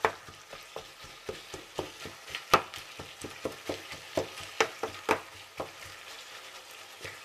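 Minced beef, chorizo and bacon sizzling as they fry in their own fat in a pan, stirred with a wooden spatula that knocks and scrapes against the pan about twice a second, with one louder knock about two and a half seconds in.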